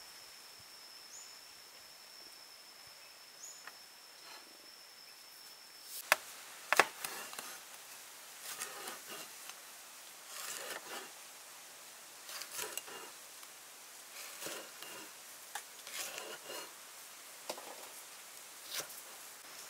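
A steady high insect buzz that stops about six seconds in. Then a cleaver slices red chillies on a wooden cutting board: two sharp knocks, followed by light cuts in small irregular groups every second or two.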